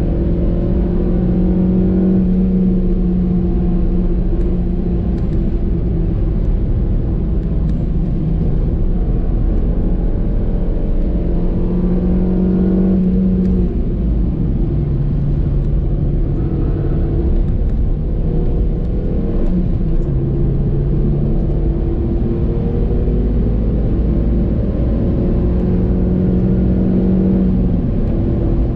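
2014 Suzuki Swift Sport's 1.6-litre four-cylinder engine accelerating, its revs climbing slowly. The revs drop sharply about halfway through at a gearshift and dip again a few seconds later, then climb once more, over a steady low road rumble.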